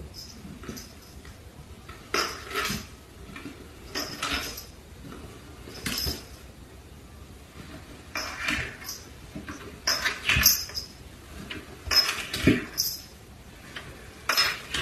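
A cat sliding on its back down wooden stairs, its body bumping and scraping onto each step: a short cluster of knocks and scrapes about every two seconds.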